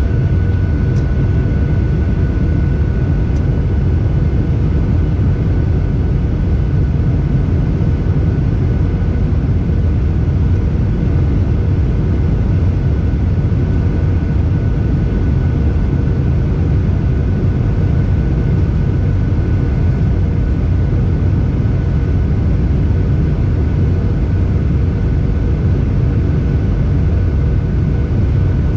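Cabin noise inside a Boeing 737-800 on its descent for landing: a loud, even rumble of airflow and its CFM56-7B jet engines, with a thin steady whine over it.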